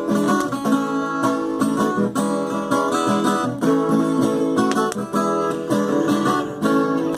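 Viola caipira, the Brazilian ten-string folk guitar, playing an instrumental passage of plucked and strummed chords in a steady cateretê rhythm.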